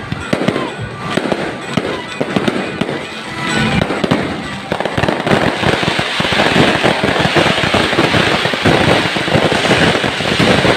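Fireworks display going off: rapid bangs and crackling, thickening into a denser, louder barrage about halfway through.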